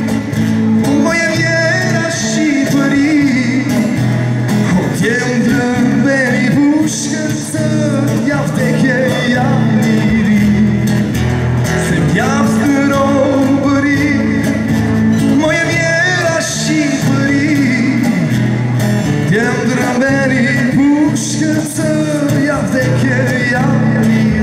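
A song sung over instrumental accompaniment, the melody line wavering and gliding above a steady backing.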